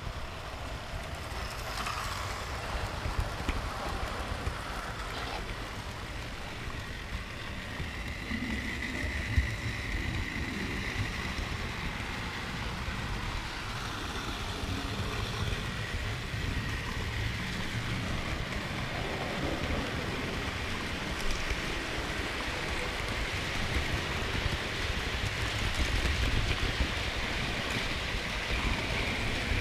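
Model train running along its track, heard from a camera riding on the train just behind the locomotive: a steady rumble and rattle of wheels on rail, with a faint high whine that comes and goes.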